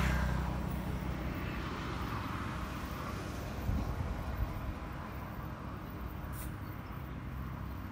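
Outdoor ambience: a steady low rumble with a faint hiss, and a couple of brief knocks about halfway through.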